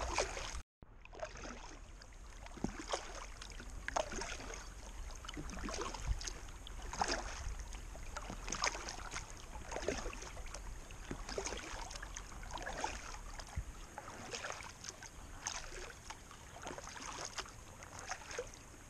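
Paddle strokes of an inflatable kayak on calm water: the blades dip and splash and drip about once a second, in an irregular rhythm over a low steady background. The sound drops out briefly near the start.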